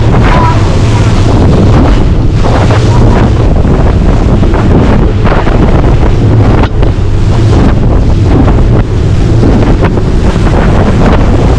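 Boat running at speed offshore: a steady low engine hum under heavy wind buffeting the microphone, with water rushing and splashing against the hull in repeated surges.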